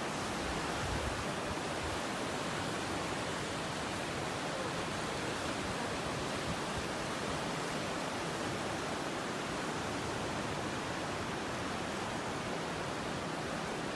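Steady, unbroken rush of water, an even hiss with no breaks or changes.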